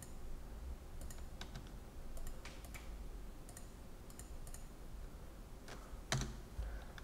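Computer keyboard and mouse clicks: light, scattered key taps while a dimension value is typed into a CAD sketch, then a louder single keystroke about six seconds in as Enter is pressed.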